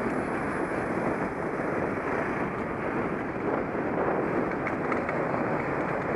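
Steady wind rush over the microphone of a camera on a moving bicycle, with road noise beneath.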